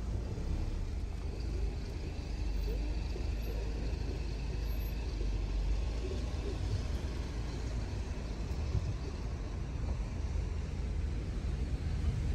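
Steady low rumble of a car driving: engine and tyre noise on the road, with no sudden events.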